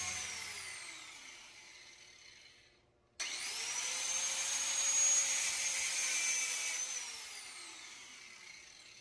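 Angle grinder with a thin cutting disc: a high whine winding down and dying away, then after a short pause the grinder is switched on again, runs at a steady high whine for a few seconds, and is switched off and winds down.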